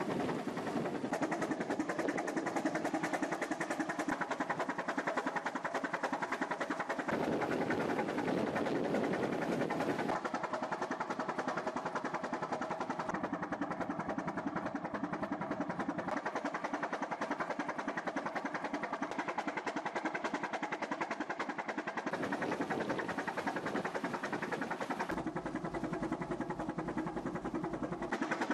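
Three-cylinder Callesen 427 CO boat engine running steadily, its sound changing abruptly several times.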